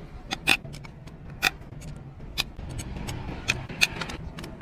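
Ratchet wrench clicking while the casing bolts of a truck gearbox are loosened: sharp metallic clicks about once a second, with fainter ticks in between.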